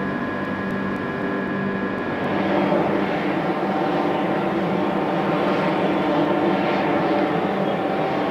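Steady industrial drone of a cement works' machinery: a noisy rumble with several steady hum tones through it, getting a little louder a couple of seconds in.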